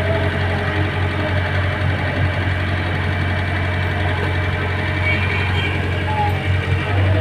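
An engine running steadily with a constant low drone, typical of road-construction machinery.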